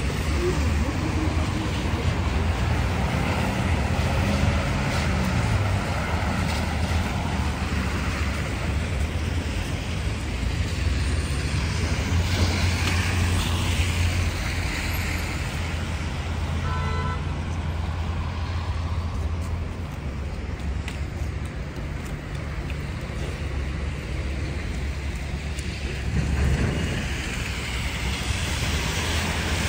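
Road traffic: cars passing one after another, their engines and tyres making a steady rumble that swells as vehicles go by. A short beep sounds just past halfway.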